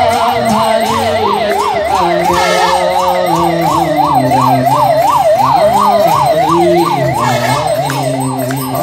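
Electronic siren on a fast yelp, a wail rising and falling about three times a second, steady in level throughout, with lower held tones beneath it.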